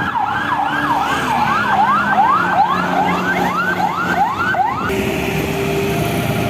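Escort vehicle's siren in a fast yelp, its pitch sweeping up and down about three times a second, cutting off suddenly about five seconds in. Road and engine noise runs under it, and a steady lower tone carries on after the siren stops.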